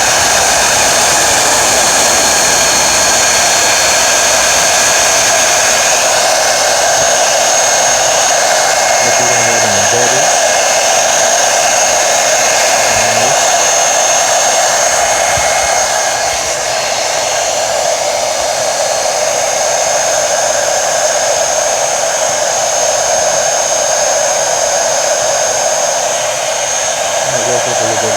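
Handheld hair dryer on its heat setting blowing steadily, a rushing air noise with a high whine. It is heating a 3M sole protector film so its adhesive sticks to the shoe sole.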